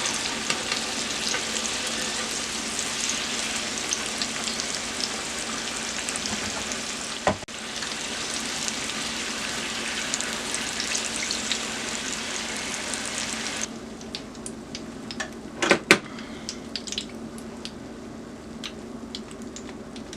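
Sweet potato fries sizzling in hot oil: a steady frying hiss with fine crackles. About 13 seconds in the hiss drops sharply to a quieter crackle, and a couple of sharp knocks follow a few seconds later.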